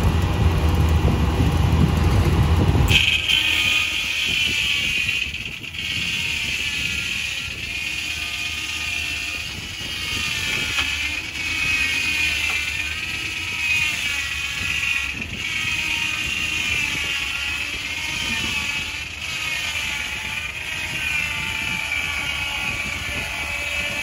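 Tractor-PTO-driven Foley Belsaw circular sawmill running, at first with a heavy low rumble. About three seconds in, the sound changes abruptly to a steady high whine with a wavering pitch as the big circular blade cuts through a pine log.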